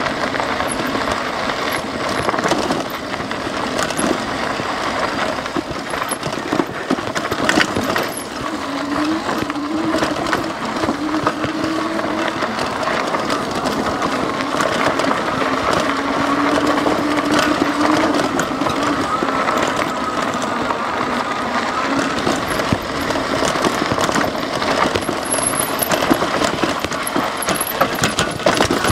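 Lectric XP 3.0 e-bike ridden over a rough, rocky trail: its 20-by-3-inch fat tyres crunch over gravel and the bike rattles and clatters without a break. A faint motor whine comes and goes, rising in pitch around the middle.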